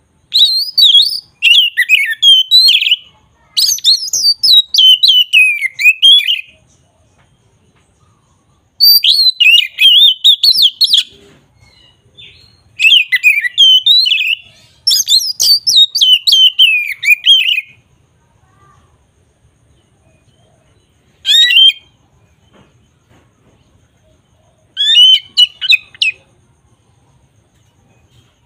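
A songbird singing in loud phrases of rapid, quickly changing notes. Each phrase lasts one to three seconds, with pauses between them, and the last two phrases are shorter and more widely spaced.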